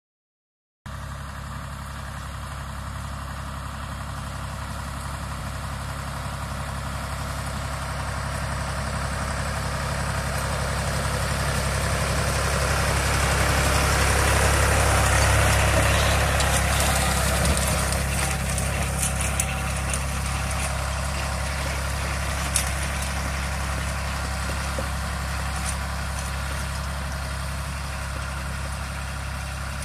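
Deutz D 4006 tractor's air-cooled three-cylinder diesel running steadily while pulling a hay tedder. It grows louder as the tractor comes near, is loudest about halfway through, then fades slightly as it moves away.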